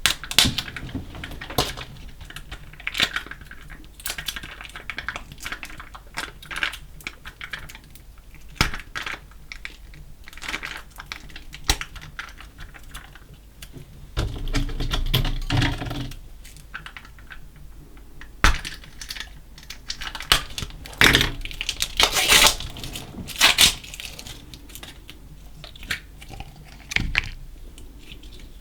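Slime mixed with small coloured beads being pressed and worked by hand: irregular sticky clicks and crackles, with a denser squishing stretch around the middle and louder bursts later on.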